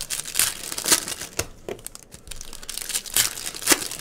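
Foil wrapper of a Panini basketball card pack crinkling in the hands as it is torn open, in a run of sharp, irregular crackles, the loudest near the end.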